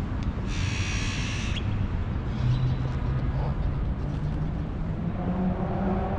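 City street traffic: a steady low rumble of passing vehicles, with an engine's hum slowly rising in pitch through the second half. A brief high-pitched squeal comes about half a second in and lasts about a second.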